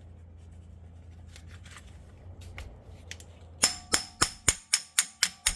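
A rapid series of sharp metallic strikes, about four a second, starting a little over halfway in: hammer blows on a hand impact driver with a T30 Torx bit, breaking loose the seized brake rotor retaining screw on a Jeep Wrangler hub. Each blow rings briefly.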